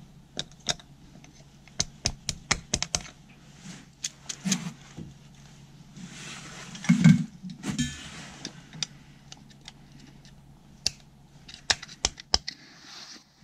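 Metal parts and hand tools clicking and tapping in quick, irregular runs during hand reassembly of a machine part, with a heavier knock about seven seconds in.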